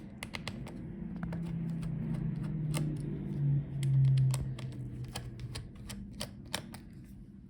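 Screwdriver removing laptop hinge screws: a run of small, sharp metal clicks and taps, with a low steady hum that starts about a second in, is loudest near the middle and fades away about two thirds of the way through.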